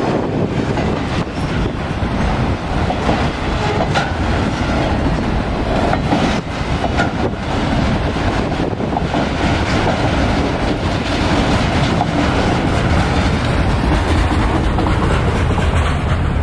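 Autorack freight cars rolling past a grade crossing: a steady rumble of steel wheels on rail with the clickety-clack of wheels over rail joints.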